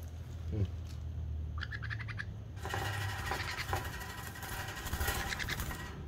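Baby sun conure making rapid begging calls while being syringe-fed: a quick run of chirps about a second and a half in, then a longer stretch of raspy, pulsing chatter as it gulps the formula.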